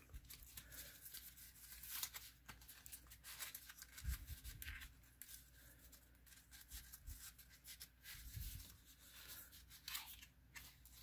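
Faint rustling and scraping of cardstock as a paper belly band is slid along a paper candy-bar wrap and the wrap is turned over in the hands, with small scattered clicks and a couple of soft bumps.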